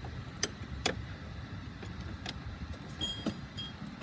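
A few sharp metallic clicks and knocks of thrust reverser cowl latch hardware being handled, with a brief metallic ring near the end, over a steady low background rumble.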